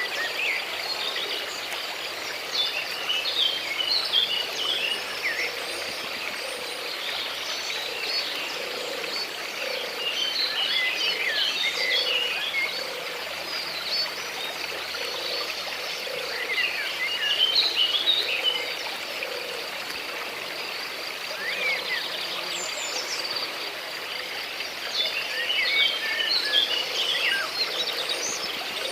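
Nature ambience: birds chirping in several bursts of quick chirps over a steady high-pitched insect drone and a soft background hiss.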